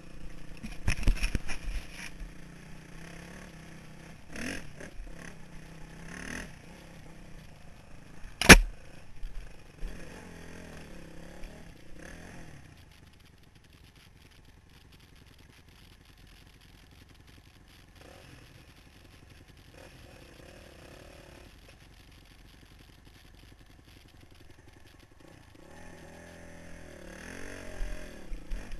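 A 2003 Honda CRF450R's single-cylinder four-stroke dirt bike engine running over a rough woods trail, with the bike and its camera mount clattering over bumps and one sharp, loud knock about eight seconds in. The engine goes much quieter through the middle, then revs up and down again near the end.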